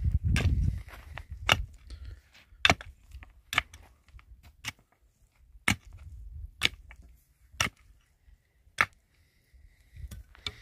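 Pickaxe striking into stony soil, eight sharp blows about a second apart as a pit is dug.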